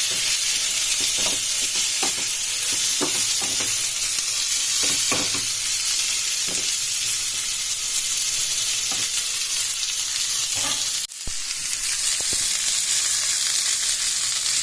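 Chutney mix of lentils, onion, green chilli and tomato sizzling in oil in a pan, stirred in strokes about once a second. The sizzle breaks off briefly about eleven seconds in, then carries on.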